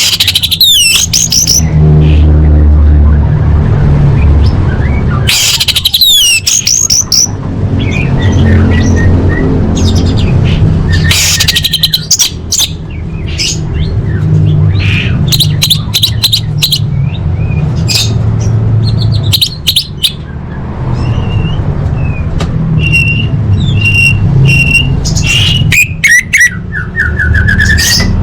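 Orange-headed thrush singing: bursts of quick, varied whistled phrases with fast up-and-down notes, separated by short pauses. A run of repeated falling notes comes near the end. A steady low hum runs underneath.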